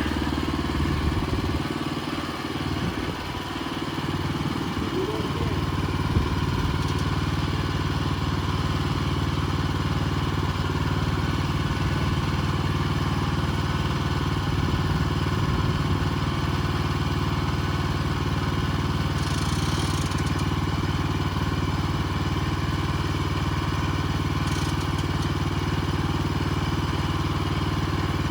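Gasoline engine of a Bushlander HM122 portable band sawmill running steadily at a constant speed, with a brief dip about three seconds in.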